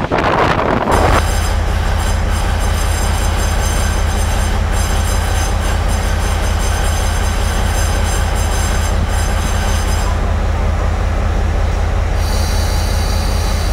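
Wind rushing at an open window of a moving train for about the first second, then a steady low hum with a thin high whine above it, which shifts near the end: the R100 diesel-electric locomotive idling while the train stands at a station.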